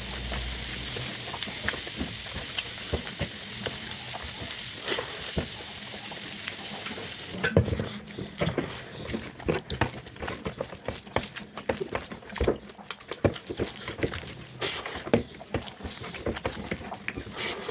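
Utensils clicking and scraping against dishes, many short clicks, with a steady hiss like food sizzling for about the first seven seconds.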